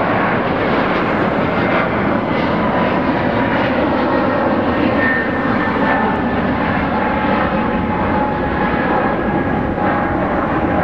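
Twin-engine wide-body jet airliner climbing out after takeoff: steady, loud jet engine noise at takeoff power, with faint whining tones riding on top.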